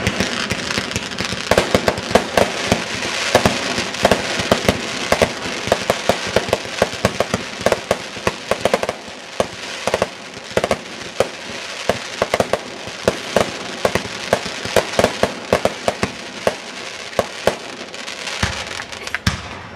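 A fireworks display going off: many sharp pops and crackles, several a second, over a continuous hiss.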